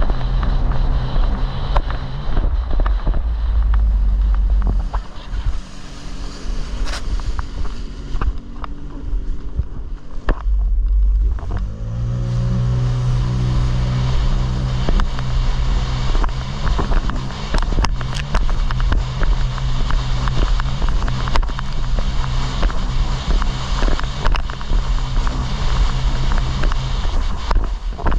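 Jet ski engine running under way with water and wind rushing past. It eases off partway through, then revs up again about twelve seconds in and holds a steady, higher note.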